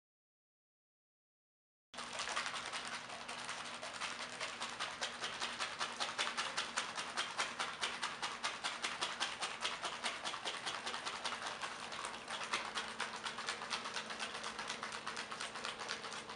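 Dead silence for about two seconds, then a plastic ration pudding pouch with water inside shaken hard and continuously, giving a fast, even rattle of crinkling clicks as the powder is mixed in.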